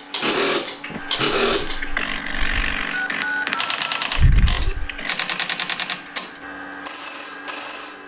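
Electromechanical step-by-step telephone exchange clattering in several quick rattling bursts of rapid strokes, with bell-like ringing, as the line is cleared after hanging up. A steady high-pitched tone comes in near the end.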